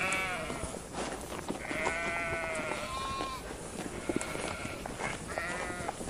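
Sheep bleating several times, with the longest bleat held for about a second around two seconds in.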